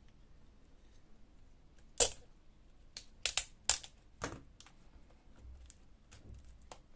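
Sharp clicks and light knocks of laptop parts being handled as the display and its cable come free: a loud click about two seconds in, then a quick run of clicks over the next couple of seconds, and a few faint ones after.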